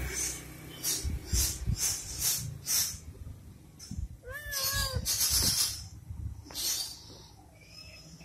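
Domestic cat giving one short two-part meow about four seconds in, with its pitch rising and falling twice. Several brief rustling noises come before and after it.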